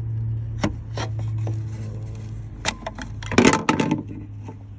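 Plastic clicks and scraping as a bulb socket is twisted counterclockwise and worked out of a reverse-light housing, with a few sharp clicks and then a louder rasping scrape about three and a half seconds in.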